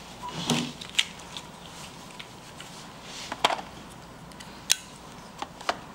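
Scattered sharp clicks and taps of an NVMe SSD's small retail box being handled and opened by hand. The loudest are about three and a half and nearly five seconds in.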